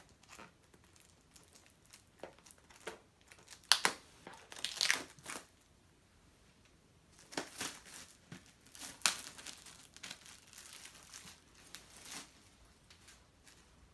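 Packaging crinkling and rustling in irregular bursts as a Blu-ray box set is unpacked by hand, loudest about four seconds in and again about nine seconds in.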